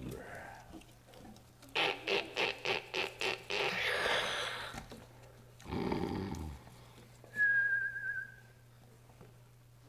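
A quick run of about seven light taps, followed by a short rustle and a brief low sound, then a single held whistle that wavers slightly near the end.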